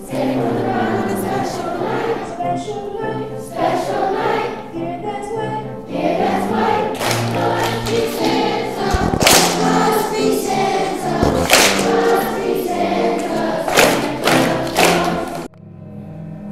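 Middle-school chorus singing a song together, with several sharp hits on the beat in the second half. About a second before the end the singing cuts off and a string orchestra of violins and cellos begins playing.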